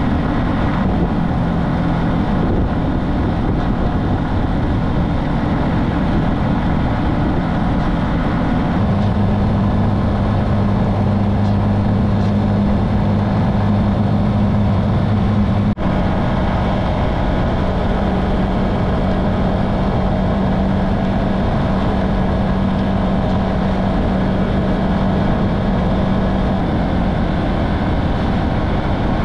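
Motorcycle engine running steadily on the move, under a constant rush of wind and road noise. The engine note shifts to a steadier, stronger hum about nine seconds in. There is a brief dropout about halfway through.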